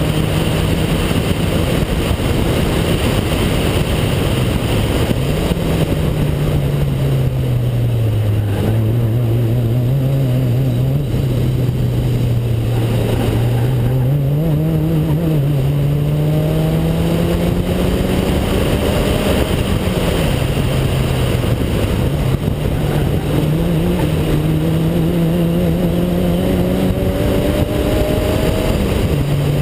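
A car engine working through an autocross course, its pitch sinking low in the first half and then climbing in two long rising runs as the car accelerates between cones. Steady wind and road noise run beneath it.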